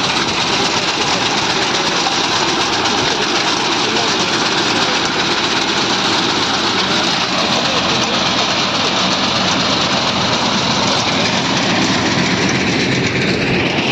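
Tractor engine running steadily under load while driving a mounted reaper-binder that cuts and ties wheat, the cutter and binding mechanism clattering along with the engine in one continuous, loud mechanical noise.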